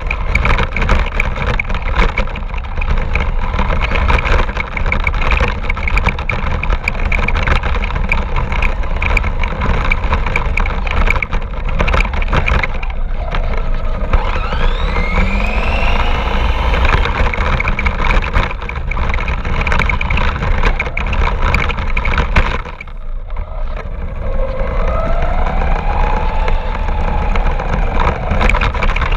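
Radio-controlled car driving over rough ground, heard from a camera on the car: a constant rattling clatter with a low rumble, and the motor's whine rising and falling in pitch as it speeds up and slows, twice in the second half.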